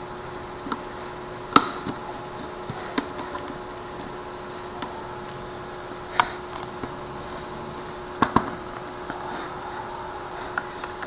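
Scattered sharp plastic clicks and knocks, about a dozen, the loudest about a second and a half in, as an action camera in its waterproof housing, its thumbscrew and a J-hook mount are handled and fitted to a helmet chin mount. A faint steady hum runs underneath.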